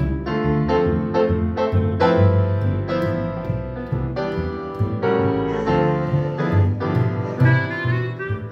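Live small band playing: piano chords and runs over a plucked upright bass line, with electric guitar.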